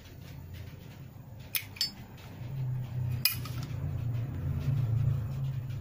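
Sharp metal clicks and clinks of a Zippo-style lighter's steel case and insert being handled: two close together about one and a half seconds in and a louder one a little past three seconds, over low handling rumble.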